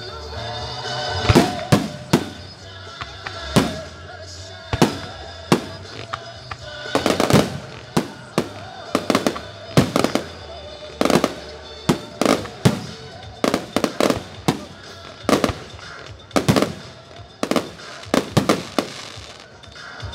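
Aerial firework shells bursting one after another, dozens of sharp bangs through the whole stretch, with music playing underneath.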